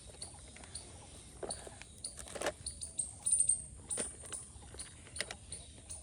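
Plastic toy trucks being handled and unloaded: scattered light clicks and knocks with a few short rustles, over faint high-pitched chirping in the background.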